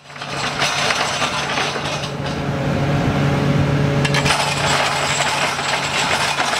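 Rockwheel G40 drum cutter on an excavator grinding into rock: a continuous gritty, rattling clatter of the cutting drums' picks chipping stone, over the excavator's steady low drone.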